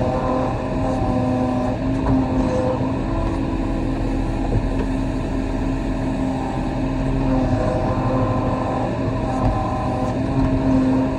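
Compact excavator's diesel engine running steadily under working load, its hum shifting in pitch every second or two as the hydraulics take up and release load.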